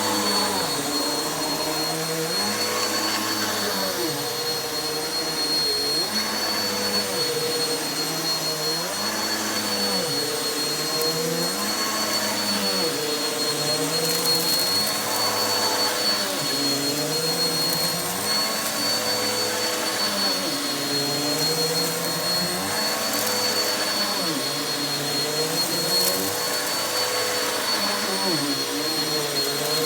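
Vacuum cleaner running steadily over carpet with a high motor whine. Its lower note dips and swells about every two seconds as it is pushed back and forth.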